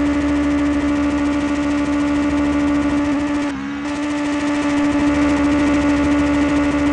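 Kawasaki Ninja H2R's supercharged inline-four engine running steadily at a constant speed, with a brief dip about three and a half seconds in.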